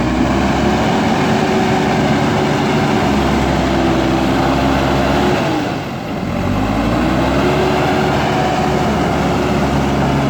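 JCB backhoe loader's diesel engine running hard at high revs under load, easing off sharply a little past halfway, then revving back up and holding.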